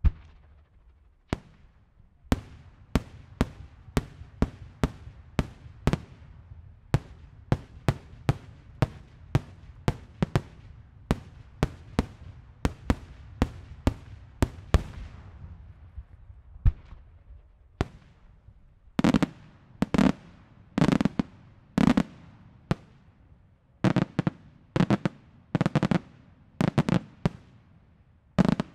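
Daylight fireworks shells bursting in the sky: a long run of sharp bangs about two a second, then a short lull. About two-thirds of the way in, louder bursts come about once a second, each a quick cluster of cracks.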